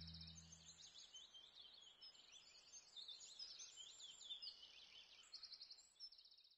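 Faint birdsong: high chirps and short, rapid trills. The last low notes of background music die away in the first second, and the birdsong fades out at the end.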